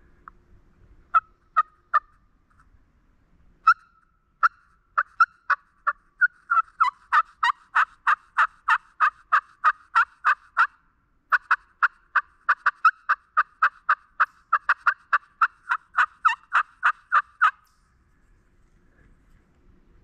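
A bird's calls: a few single short, sharp calls, then a long, even series of them at about four a second, with a short break about halfway.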